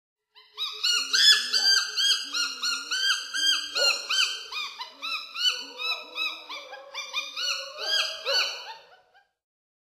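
Baby chimpanzee calling: a rapid run of high-pitched, arching squeaks, about three a second, starting about half a second in and stopping just before the end.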